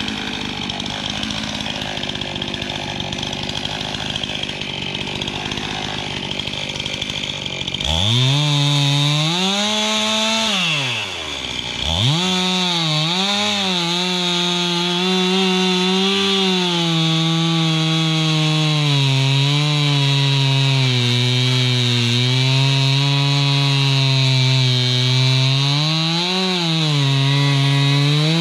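Two-stroke chainsaw running and cutting. A steady rasping noise is followed, about 8 seconds in, by the louder engine note rising and falling under load. The engine drops to idle briefly near 11 seconds, then revs back up and holds high with small dips.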